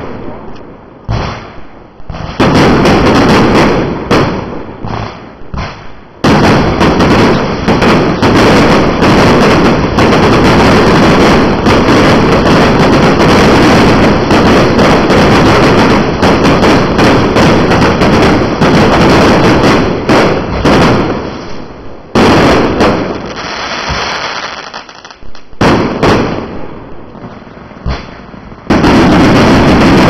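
Fireworks firing in a very loud, dense barrage of rapid bangs and crackles. It eases to scattered single bangs in the first few seconds and again from about two-thirds of the way through, then a heavy barrage starts up again near the end.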